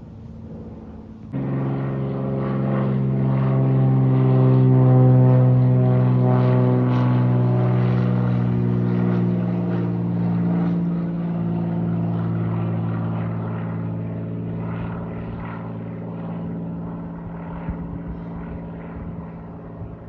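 Propeller airplane passing overhead: a steady engine and propeller drone that comes in abruptly about a second in, is loudest a few seconds later, drops a little in pitch about halfway through and slowly fades.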